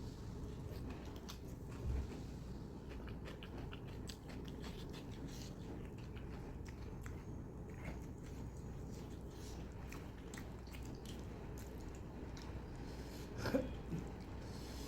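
Close-miked chewing and biting of mutton and curry, with many short wet mouth clicks over a steady low background hum. One louder mouth sound comes near the end.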